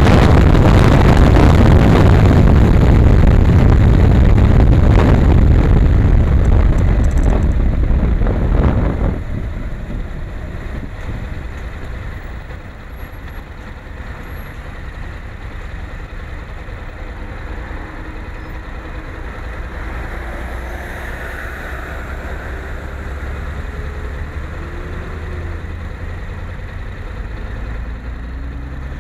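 Wind and road noise on a motorcycle-mounted camera at speed, which drops away suddenly about nine seconds in as the bike slows. After that comes the Honda NC700X's parallel-twin engine idling with a steady low hum, while other vehicles faintly pass by.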